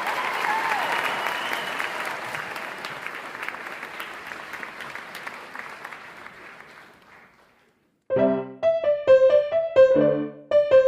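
Audience applause fading away over about seven seconds. After a brief silence, short, separate piano notes start playing.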